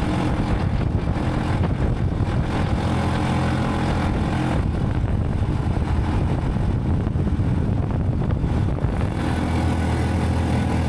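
A motor vehicle's engine running steadily, its note shifting about nine seconds in.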